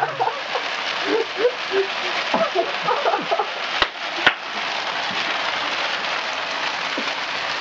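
Steady hissing rush from the running machine that is blowing artificial snow into the room. Faint voices sound in the first half, and two sharp clicks come about four seconds in.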